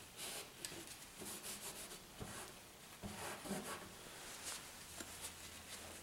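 Faint, irregular rubbing and scratching strokes against a canvas as wet oil-paint edges are softened.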